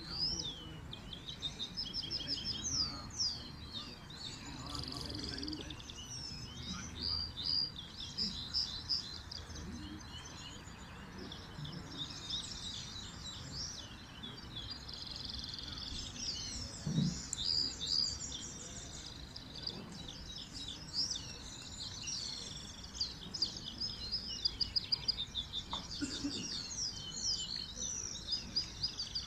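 Several caged songbirds singing together, a continuous run of rapid, overlapping high twittering and chirps.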